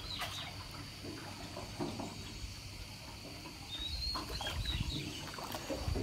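Small birds giving short high chirps near the start and again about four seconds in, over faint water splashing and a steady thin high tone.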